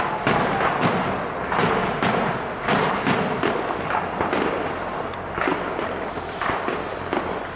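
Fireworks display: a run of aerial shell bursts and bangs in quick succession, about one or two a second.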